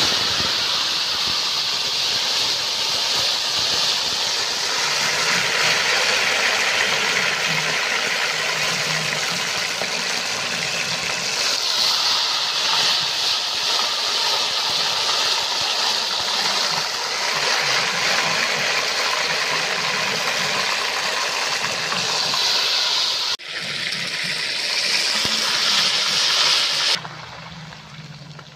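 Marinated chicken leg pieces deep-frying in hot oil in an iron kadai: loud, steady sizzling of the oil bubbling around the wet batter. It breaks off briefly about 23 seconds in and is quieter for the last second or so.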